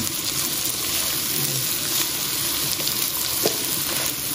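Sliced pork and vegetables sizzling in a nonstick wok, stirred with a wooden spatula, with a few light scrapes and clicks.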